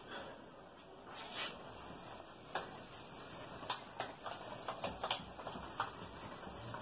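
A cloth duster wiping a whiteboard: faint rubbing swipes with scattered light knocks and ticks.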